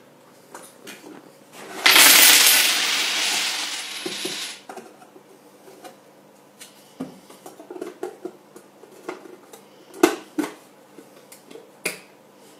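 Coins in a money box: a loud rush of clinking coins starts about two seconds in and fades over roughly three seconds. Scattered lighter clinks follow, with a couple of sharper knocks near the end.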